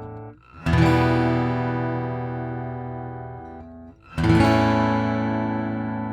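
Taylor 324e acoustic guitar, with a mahogany top and Tasmanian blackwood back and sides, heard through its Expression System 2 pickup. Two chords are struck, one shortly after the start and one about four seconds in, each briefly damped beforehand and then left to ring out and fade.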